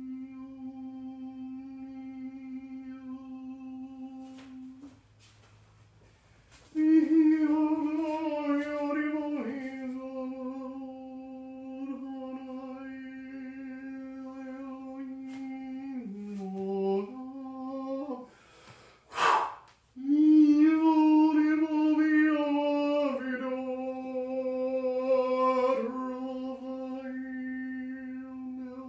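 A man chanting or humming long held notes on one steady pitch in a small room, in three long tones, each ending with a pause for breath; a sharp intake of breath comes about two-thirds of the way through. The notes are typical of ceremonial 'vibrating' of divine names.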